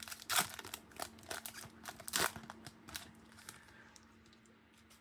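Crinkling of a Magic: The Gathering booster pack's foil wrapper and rustling of cards being handled, in several short sharp bursts that die away after about three seconds.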